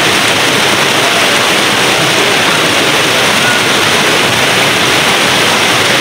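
Loud, steady rushing of a rocky river's water flowing over the stones.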